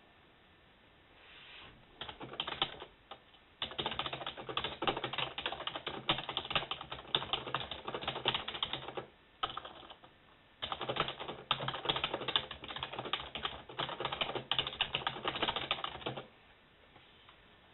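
Typing on a computer keyboard: fast runs of key clicks in bursts, with brief pauses between them, stopping a little before the end.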